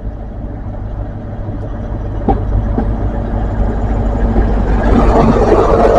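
Diesel train engine running, getting steadily louder and swelling strongly near the end, with a couple of short knocks a little after two seconds in.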